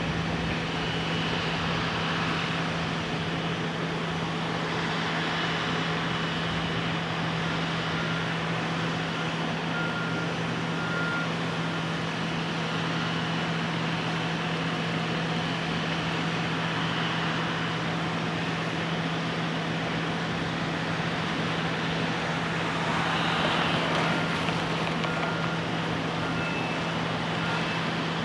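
Steady construction-site machinery noise with a constant low hum. Faint short beeps, like the reversing alarms of distant construction vehicles, recur now and then, and the noise swells briefly about three quarters of the way in.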